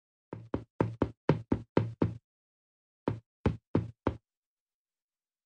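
Quick, sharp knocks at about four a second: eight in a row, a pause of about a second, then four more.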